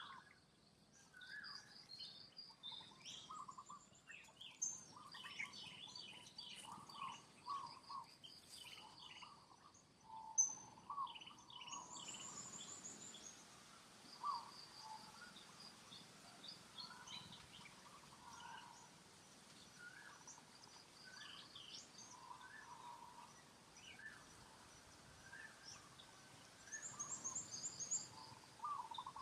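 Many short, high chirps and squeaks from small animals over a faint steady background hiss. The background hiss changes abruptly about twelve seconds in.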